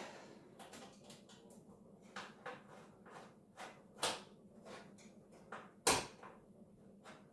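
Scattered clicks and knocks of a screwdriver bit on a flexible shaft extension being worked onto a motherboard standoff screw inside a PC case. The loudest knock comes about six seconds in.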